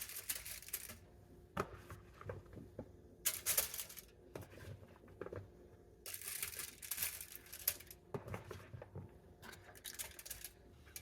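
Aluminium foil crinkling and tearing as it is handled, in three main rustling bursts with small clicks between.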